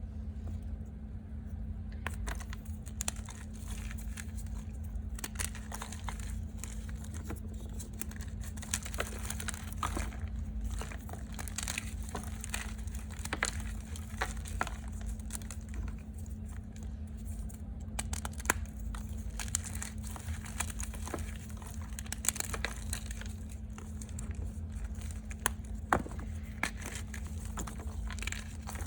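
Reformed gym chalk being crunched close to the microphone: a dense run of sharp, dry crunches and crumbles that starts about two seconds in, over a steady low hum.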